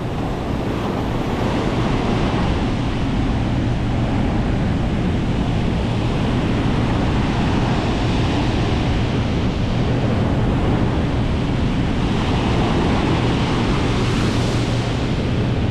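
Heavy hurricane-driven ocean surf breaking and washing up a steep beach, a steady loud rush, with wind buffeting the microphone.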